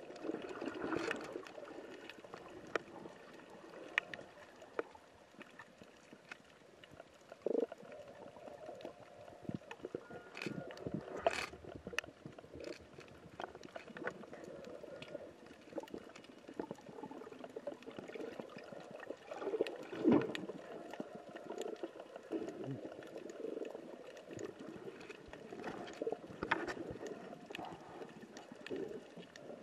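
Underwater sound recorded through a camera in the water: a low, wavering gurgle of water and bubbles, with scattered sharp clicks and a few louder swells.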